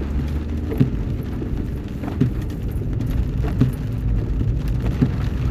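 Inside a moving car in the rain: a steady low engine and road rumble with rain on the car. A short knock repeats about every second and a half.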